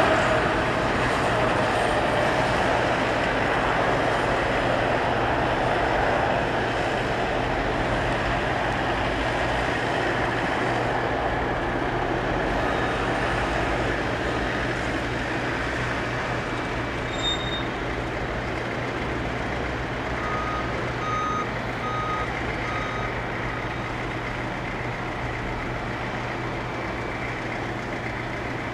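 Emirates Airbus A380 jet engines during its landing: a broad rush that fades slowly, over a steady low hum. About two-thirds of the way in, a vehicle's reversing beeper sounds four short beeps.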